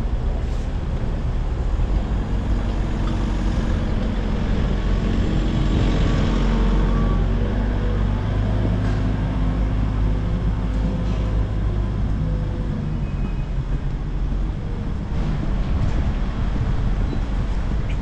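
City road traffic with a heavy vehicle's engine running close by: a steady low rumble and engine hum that is strongest in the middle and eases off toward the end.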